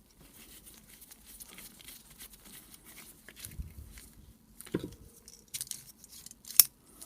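Small clicks, taps and rustling of hands and tools working inside the opened rotary hammer's housing while its wiring and electrical parts are disconnected. There is a low knock about three and a half seconds in and a sharp click near the end.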